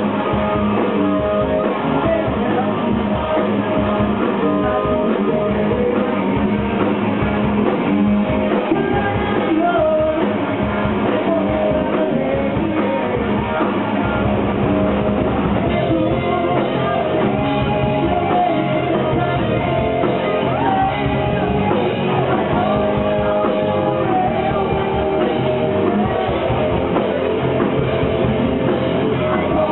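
Live rock band playing loud and steady: electric guitars, bass guitar and a drum kit.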